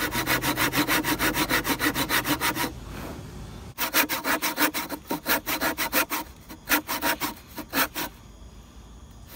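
Hand saw cutting into a hardwood beam along the last line of a sliding-dovetail socket: quick back-and-forth strokes, a short pause about three seconds in, then more strokes that slow down and stop about eight seconds in.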